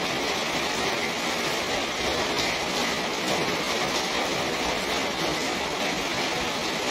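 Steady rain falling on the garden and terrace, an even hiss with a few faint drip ticks.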